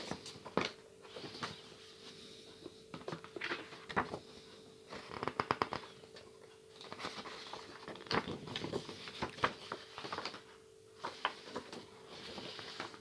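Thin paper board-game map sheets being handled and flipped: rustling and crinkling paper with scattered sharp crackles and taps, and a quick run of crackles around the middle.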